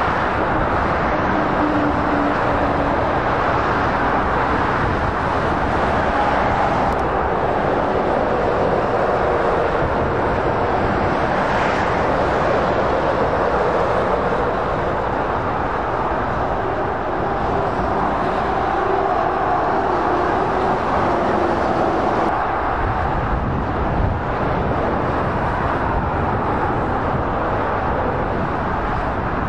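Steady motorway traffic: lorries and cars passing at speed, a continuous rush of tyre and engine noise with faint engine notes from individual trucks rising and fading as they go by.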